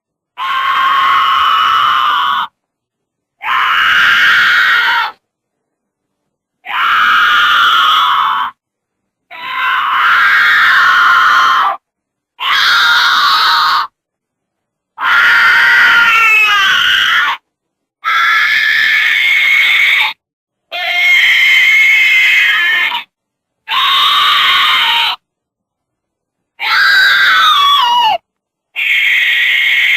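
Goats screaming in a string of about eleven separate, loud, human-like yells, each lasting a second or two. The yells are cut apart by brief gaps of dead silence, and some of them waver or slide in pitch.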